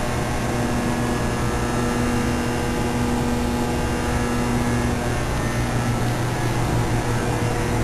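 Steady machinery hum made of several steady tones, the strongest one low; a slightly higher tone drops out about five seconds in.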